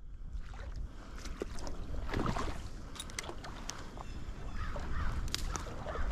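Wind buffeting the action camera's microphone as a low rumble, over splashing stream water, with a few scattered small knocks and ticks.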